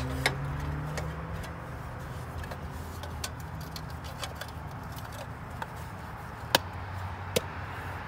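Plastic air-cleaner cover being handled and fitted onto a lawn tractor's stopped engine: a few light clicks and taps, with two sharper knocks near the end. A steady low hum runs underneath.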